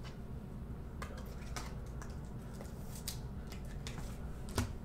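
Faint handling noises of trading cards and packs: a few light, sharp clicks and snaps at irregular intervals over a low room hum, the sharpest near the end.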